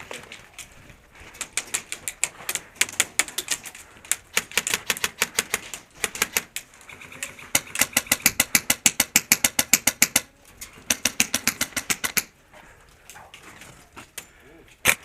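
Airsoft guns firing in rapid strings of sharp clicking shots, several runs of a second or more each with short pauses between, and one louder single shot near the end.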